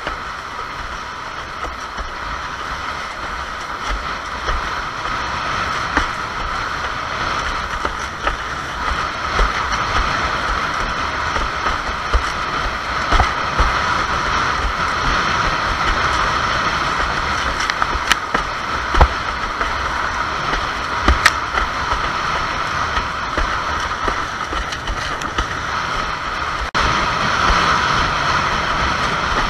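Wind rushing over the microphone and water hissing past a windsurf board sailing fast through chop, with frequent knocks and thuds as the board slaps the waves. The rush slowly grows louder.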